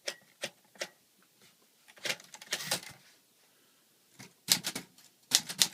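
Manual typewriter, a 1946 Smith-Corona Silent, clacking as keys are struck: three single strikes in the first second, a cluster of strikes a couple of seconds in, then a quick run of strikes near the end.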